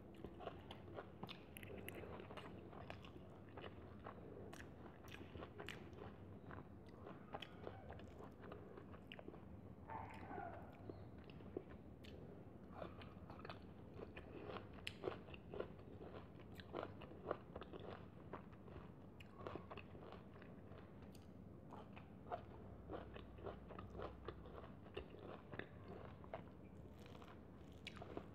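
Quiet close-up eating sounds: chewing and crunching with many small mouth clicks, and fingers mixing rice and curry on a steel plate.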